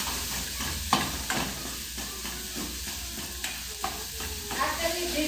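Ground beef sizzling as it starts to brown in a pot, stirred with a spatula that scrapes and knocks against the pot a few times.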